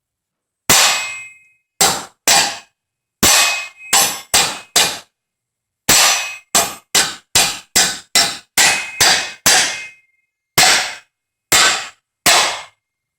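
A hammer striking a steel concrete wedge anchor to drive it down into its drilled hole: about twenty sharp metallic clangs with short ringing tails, in uneven bursts with pauses, the fastest run at about two to three blows a second.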